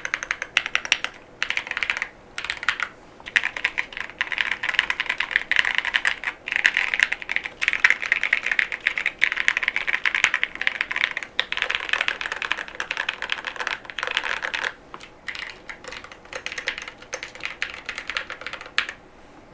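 Fast typing on a Monsgeek M5 mechanical keyboard with Gateron Baby Kangaroo tactile switches and PBT SDA keycaps: a rapid, continuous stream of keystrokes broken by short pauses, stopping just before the end.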